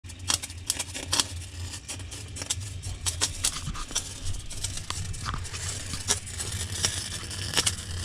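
Irregular crackling and popping as a refrigerator's red-hot defrost heater melts the frost on the evaporator coil above it, over a low steady hum.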